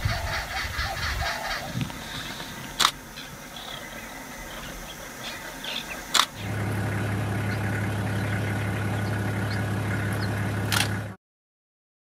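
Quiet outdoor ambience with faint scattered bird chirps and two sharp clicks. About halfway through, a steady low motor hum comes in and runs for about five seconds, then stops abruptly.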